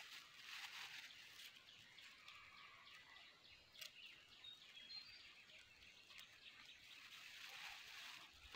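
Near silence: faint outdoor ambience with scattered faint clicks, and about halfway through a few short, high bird chirps.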